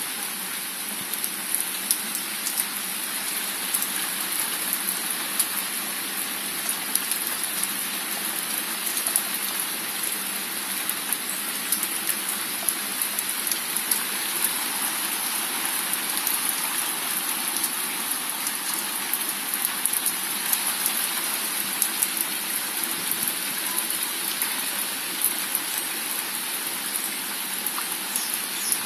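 Heavy rain falling steadily on a paved garden patio and plants, with frequent sharp ticks and splashes of drops landing close by.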